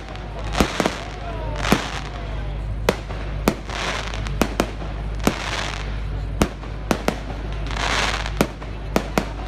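Fireworks going off: sharp bangs every second or so, whistles falling in pitch in the first two seconds, and spells of crackling.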